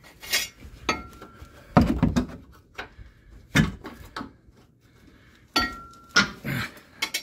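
Metal hand tools clanking and knocking against the truck's front suspension as the control-arm bolt is worked: about seven irregular clanks, two of them ringing briefly.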